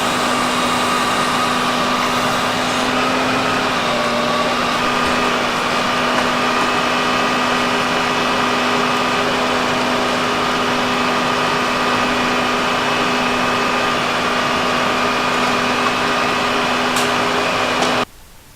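An engine running steadily at a constant speed, with a steady hum over a noisy rush. It starts abruptly and cuts off abruptly near the end.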